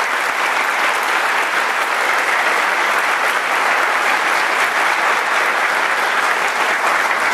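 Audience applauding steadily in a hall, a dense even clapping that holds at the same level throughout.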